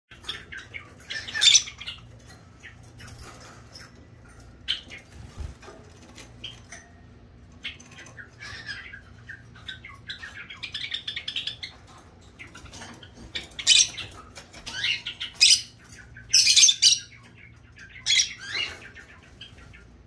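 Rosy-faced lovebird chirping and giving short, shrill squawks in irregular bouts. The loudest calls come in a cluster over the second half.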